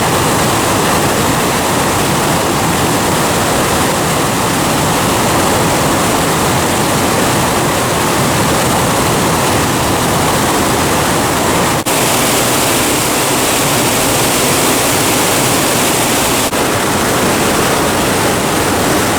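Waterfall rushing: a loud, steady roar of falling water, dipping for an instant twice.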